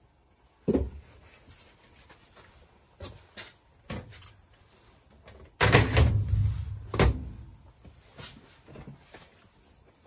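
Metal lid of a sheet-metal wax melter box being put on. A couple of light knocks come first, then about halfway through a loud clang with a short low rumble, and a second knock about a second later.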